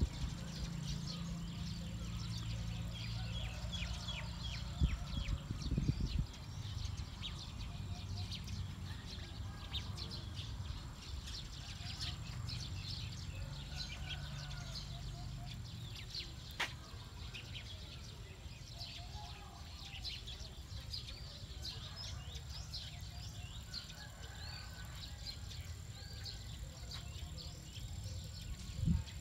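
Small birds chirping and twittering throughout, many short calls, over a low outdoor rumble. There are a couple of dull thumps, one about five seconds in and one near the end, and a single sharp click midway.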